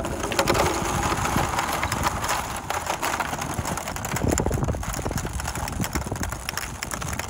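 A big load of plastic ping-pong balls pouring out of a fabric bin into a plastic milk crate: a dense, continuous clatter of many small clicks as the balls hit the crate and each other.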